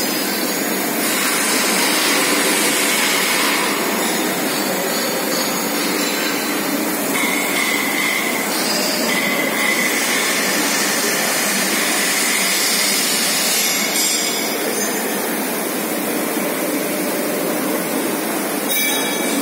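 Steady, loud industrial din of a railway coach factory shop floor, with a couple of brief high-pitched squeals partway through.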